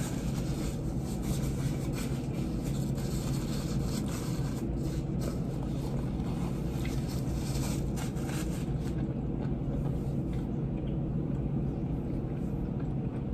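A steady low hum of room background noise, with faint scattered rustles and clicks.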